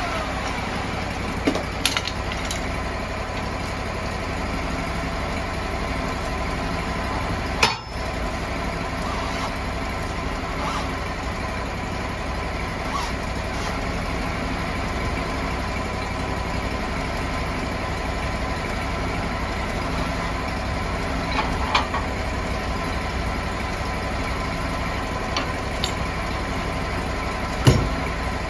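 Sawmill engine running steadily at a constant speed, with a few sharp knocks and clanks of log handling over it. The loudest knocks come about eight seconds in and near the end.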